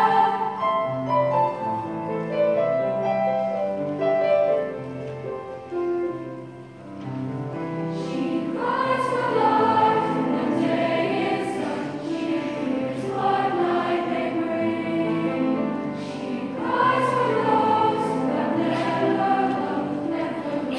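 Middle school mixed choir singing in parts, holding long chords. A few seconds in the sound thins out briefly, then the choir comes back fuller and louder, with crisp consonants cutting through the sustained vowels.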